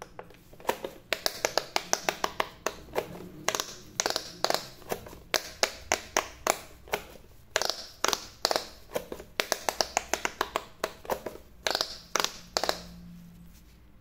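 Bubble buttons of a handheld electronic speed push game being pressed in quick succession: a run of sharp plastic clicks, several a second, irregularly spaced, stopping near the end.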